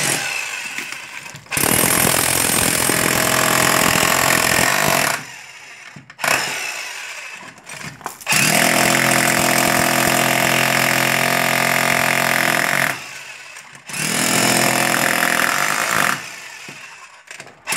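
TOTAL TH213006 electric demolition breaker (1,300 W, about 3,800 blows a minute) hammering its pointed chisel bit into a concrete wall, run in several bursts of a few seconds with short pauses between. It is rather noisy.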